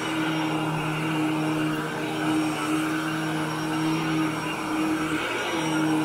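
Upright vacuum cleaner running steadily as it is pushed over carpet, pre-vacuuming to pull up dry soil: a steady motor hum with airy rushing, the hum dipping briefly in pitch about five seconds in.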